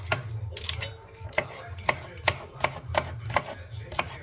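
Chef's knife slicing through courgette and striking a plastic cutting board, a quick run of sharp cuts about three a second. A low steady hum runs underneath.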